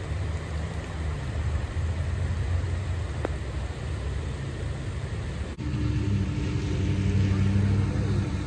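Steady low rumble of rushing floodwater in the swollen river. After a cut about five and a half seconds in, a steady engine hum takes over.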